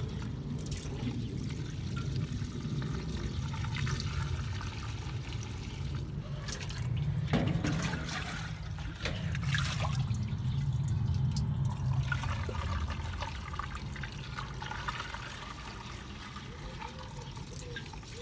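Used cooking oil pouring and trickling from a plastic jug through a funnel into a fuel filler, with the jug being dipped and refilled in a metal tub, over a steady low rumble.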